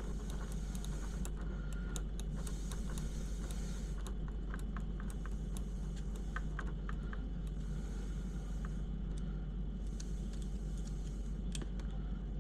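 Scattered light clicks and ticks of small screws, parts and hand tools being handled during assembly of a mini RC crawler's chassis, over a steady low hum.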